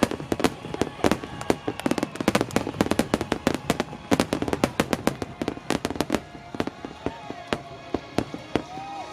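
A rapid barrage of firework shells bursting, several bangs a second, thinning out over the last few seconds. Music plays underneath and becomes clearer near the end.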